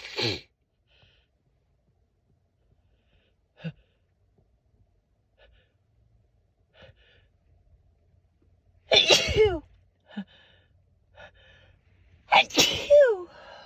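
A woman sneezing twice, about three and a half seconds apart. Each sneeze is loud, with the voice dropping in pitch, and faint breaths come before them.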